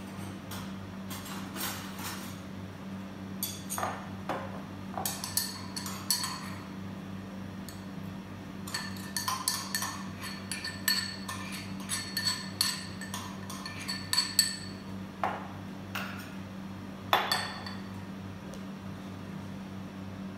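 Small stainless steel mortar and pestle clinking and knocking, as pounded coriander root, garlic and black pepper paste is worked and scraped out into a bowl. Sharp metallic taps with a slight ring, coming in groups: a few at first, then a quick run of clinks, and a few last knocks near the end.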